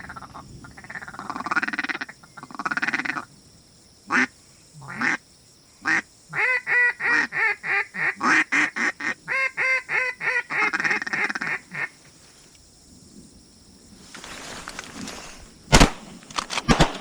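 Duck quacking: a few short quacks, then a long run of loud, evenly spaced quacks at about two a second, which stop about halfway through. A few sharp clicks come near the end.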